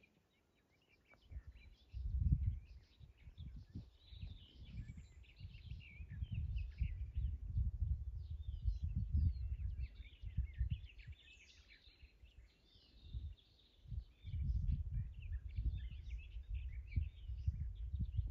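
Small birds chirping and singing, with gusts of wind rumbling on the microphone that start about a second in and ease off briefly around the middle.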